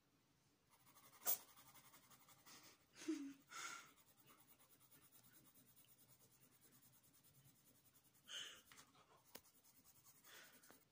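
Faint scratching of a coloured pencil shading in a paper cutout on a tabletop, with a sharp tap about a second in and a few short rustles of paper and hand movement.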